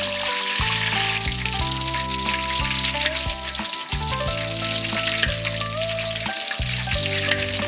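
Food sizzling in a hot pan, a steady crackle, under background music with slow held notes.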